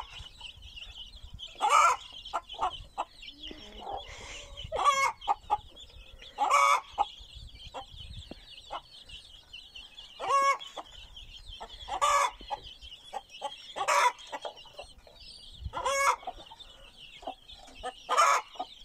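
Many chicks peeping continuously, with a hen clucking loudly in short calls about every two seconds over them.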